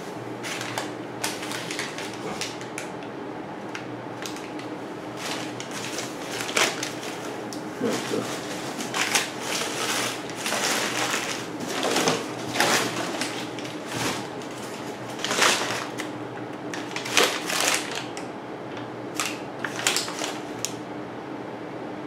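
Irregular rustling, crinkling and clicking of things being handled, busiest and loudest through the middle, over a steady low hum.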